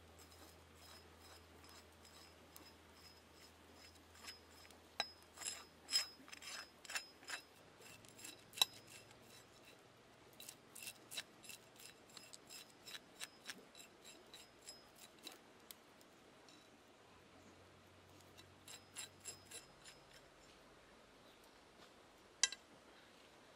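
Knife blade scraping the scales off a snake on a stone, in runs of short, sharp scrapes, several a second, with pauses between the runs.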